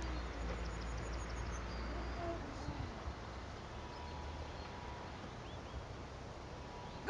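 Quiet outdoor ambience with faint bird chirps. A low rumble, likely wind on the microphone, drops away about two seconds in.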